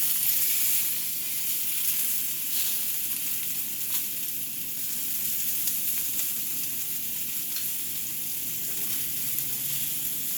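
Olive-oiled slices of yellow and green squash sizzling on a hot grill: a steady hiss with a few faint crackles.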